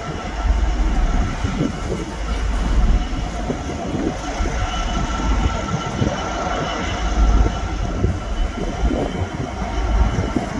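GB Railfreight Class 66 diesel-electric locomotive, its two-stroke EMD V12 engine, drawing slowly nearer with a heavy low rumble that swells and eases. A thin steady high tone runs over it.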